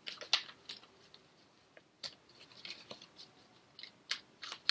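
Tarot cards being shuffled and handled: irregular crisp clicks and snaps of card stock.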